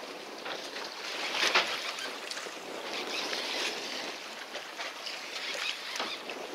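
Sea water splashing and sloshing around a small fishing boat, with wind on the microphone; a louder splash about one and a half seconds in.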